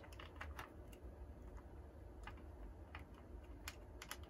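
Scattered light clicks of an HO-scale model diesel locomotive's plastic trucks and metal wheels being set onto the rails and pushed along sectional track by hand. There are a few in the first second, then single clicks and a quick pair near the end.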